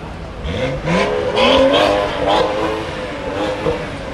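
A BMW sedan's engine revving up as it accelerates, its pitch climbing over about two seconds and then settling to a lower, steadier note.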